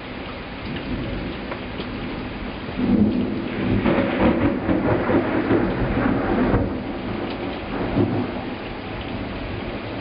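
Thunder rolling over a heavy downpour of rain. The rumble swells about three seconds in, stays strong for a few seconds and dies away around eight seconds.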